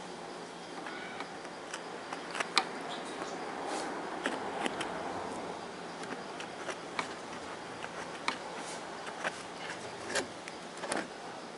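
Light, irregular clicks and taps of a thin metal pick working cotton and acrylic resin around a TV speaker's voice coil, about nine in all, over a steady background hiss.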